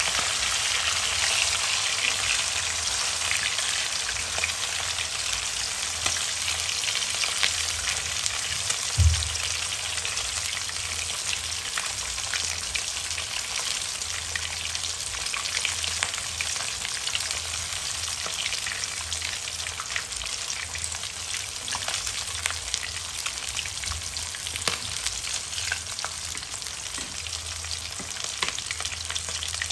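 Hot oil sizzling steadily around a whole fish frying in a nonstick wok, with scattered small pops and the occasional touch of a metal spatula. There is a single low thump about nine seconds in.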